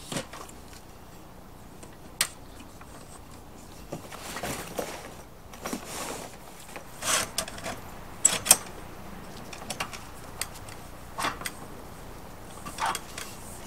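Aluminium folding camping table being set up: scattered clicks, clinks and knocks of its metal frame, legs and slat top, with some rustling in between.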